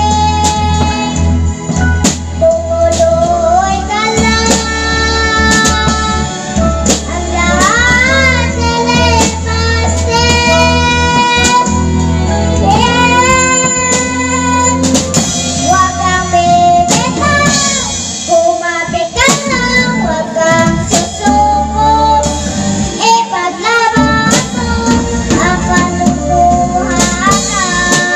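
A young girl singing a Filipino gospel song into a microphone, her voice amplified, over musical accompaniment with a heavy bass line and a steady beat.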